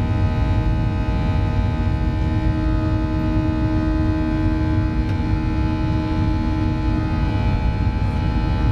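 Boeing 737-700's CFM56-7B jet engines and airflow during climb-out, heard inside the cabin: a steady deep rumble with several steady whining tones above it.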